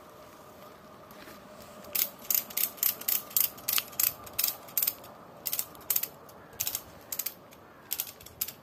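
Ratchet buckle on a Tentsile DUO tree tent's webbing anchor strap being cranked, its pawl giving a run of sharp clicks, about three a second with a short pause partway, as the strap is drawn tight to tension the whole tent.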